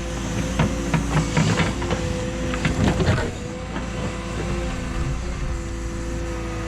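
Cat 314E excavator working: its diesel engine and hydraulics running with a steady tone, while the bucket knocks and clatters through a mix of dirt, rock, sticks and roots, with a run of sharp knocks in the first three seconds.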